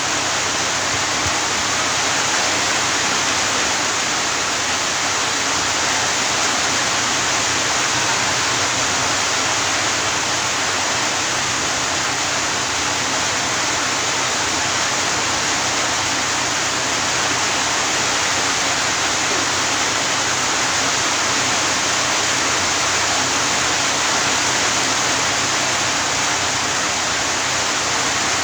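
Steady, even rushing noise that does not change, with a faint low hum underneath.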